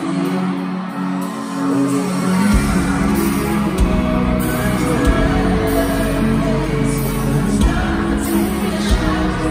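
Live pop band with lead vocals, recorded from the crowd in a large arena. It opens with held chords and no bass, and the bass comes in about two and a half seconds in.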